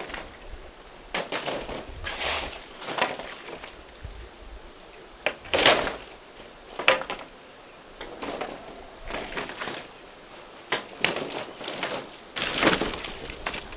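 Irregular knocks, clatter and rustling from things being handled, coming in short bursts every second or so.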